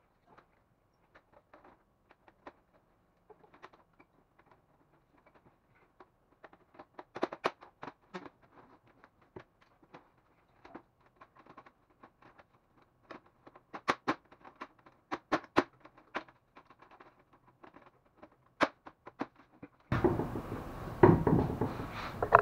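Scattered plastic clicks, taps and knocks as an HP LaserJet 400 M401dn laser printer is handled and its covers are fitted back into place, busier in the middle. Louder handling noise comes in near the end.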